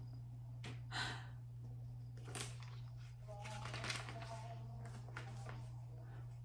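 Magazine pages being handled and turned, several soft paper rustles and flicks, over a steady low hum.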